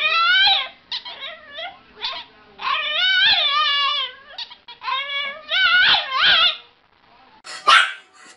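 French bulldog 'talking': long, warbling whine-howls that slide up and down in pitch, three long ones with shorter yips between. Near the end a brief, harsher, noisier sound cuts in.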